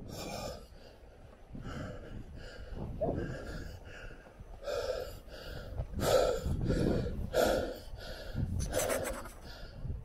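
A walker's heavy panting breaths, one every half second to a second, with soft footsteps in loose sand, climbing a sand dune. The breaths grow louder in the second half.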